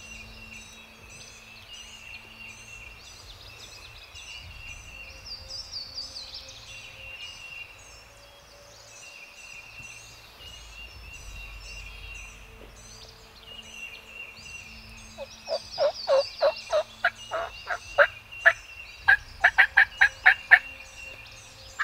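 Wild turkeys gobbling: faint background birdsong for the first two-thirds, then loud, rapid runs of calls in the last several seconds.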